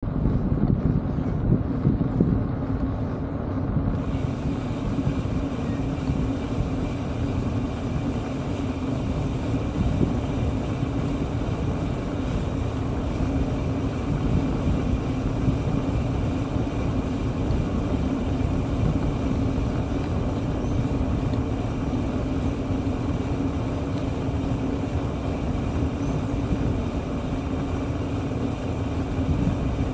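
Steady low rumble of wind buffeting a moving camera's microphone along with tyres rolling on asphalt during a road ride. A brighter hiss joins about four seconds in.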